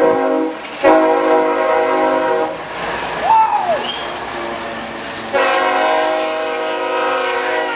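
CSX ES44AH locomotive's air horn sounding a chord of several notes at once in a horn show: a short blast, a longer blast of under two seconds, then after a pause of about three seconds a long sustained blast.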